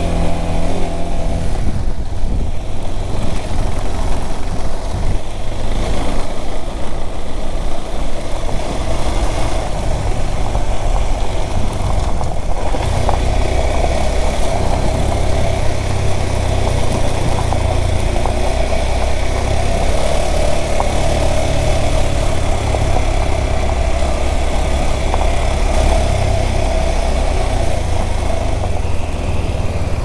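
KTM 390 Adventure's single-cylinder engine running steadily while the bike is ridden along a gravel and dirt road.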